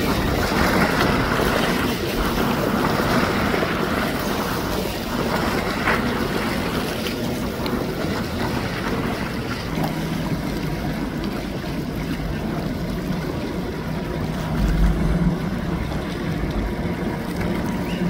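Wind noise on the microphone over open water. About halfway through, a boat engine's steady low hum comes in.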